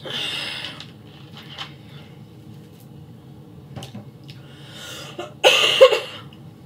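A woman coughing, congested with a cold: one cough right at the start and a louder one near the end.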